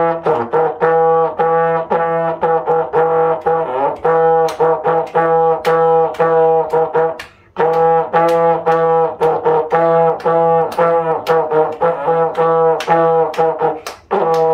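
Trombone playing a rhythm exercise: a string of short, tongued notes mostly on one low pitch, in two phrases with a brief break about seven seconds in. Sharp handclaps keep a steady beat along with it.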